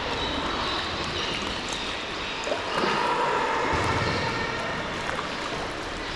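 Sea water splashing, trickling and sloshing around a sea kayak as it is paddled.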